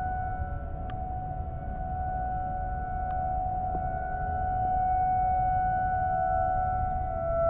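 Outdoor tornado warning siren sounding one long steady tone during a siren test, dipping slightly in pitch near the end, over a low rumble.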